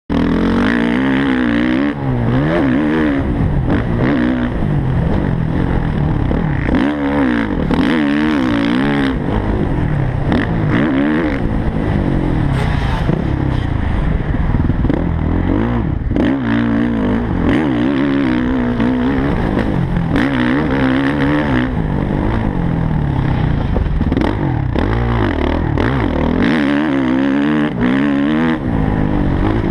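Suzuki motocross dirt bike engine revving hard and backing off over and over as the bike is ridden around the track, its pitch climbing on the straights and dropping into the turns.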